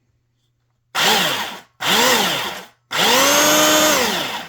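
1990s Sears Craftsman belt sander switched on in three short bursts. Each time its motor whines up to speed and winds down, and the third run holds at full speed for about a second before coasting down. These are test runs while the belt tracking is being adjusted.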